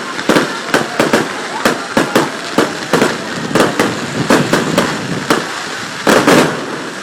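Fireworks display: aerial shells bursting in a rapid, irregular run of sharp bangs, about three a second, over a steady crackling hiss. The loudest cluster comes about six seconds in.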